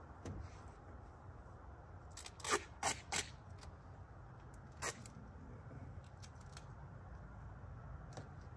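Duct tape ripping off the roll in short rasping pulls: three quick rips about two and a half seconds in, and one more near five seconds, over a low steady rumble.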